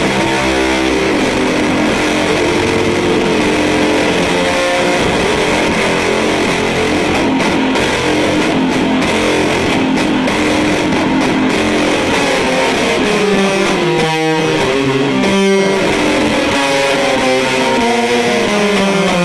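Electric guitar played through an EarthQuaker Devices Fuzz Master General fuzz pedal into a miked Fender Deluxe Reverb amp: a thick fuzz tone playing a run of changing notes, with two brief stops where the notes are cut off in the second half.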